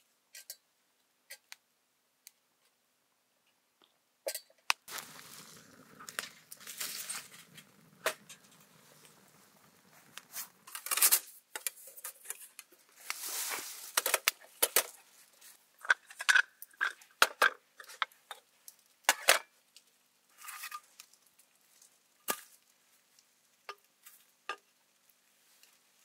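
Irregular clicks, rustles and light clinks, as of things being handled close by. A longer scratchy rustling runs from about five to eleven seconds in, and a dense run of clicks and clinks follows.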